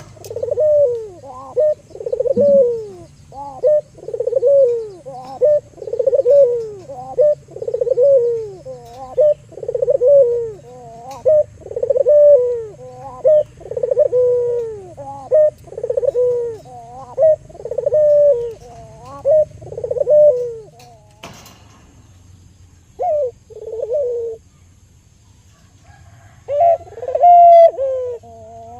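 Albino local puter dove (Barbary dove) cooing in a steady series of rising-and-falling coos, about one a second, singing actively ('gacor'). The cooing breaks off after about twenty seconds with a sharp click and one short coo, then starts again near the end.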